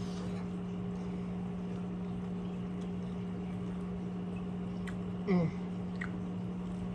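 Steady low electrical hum from a kitchen appliance, with soft eating sounds. About five seconds in comes a brief falling "mm" of someone savouring food.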